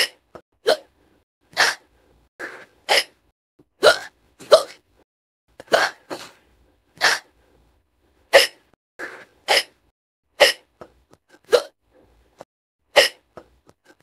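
A girl hiccupping over and over: short, sharp hiccups at uneven gaps, roughly one a second, with silence between them.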